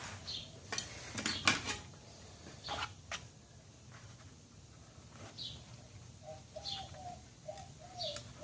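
A few light clicks and taps of hand tools being handled, then a bird chirping and whistling faintly from about five seconds in.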